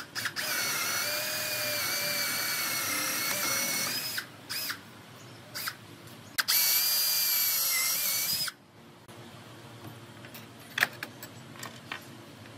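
Handheld power drill boring into the pine chair frame: a steady whine for about four seconds, a short blip, then a second run of about two seconds. Light clicks of handling follow near the end.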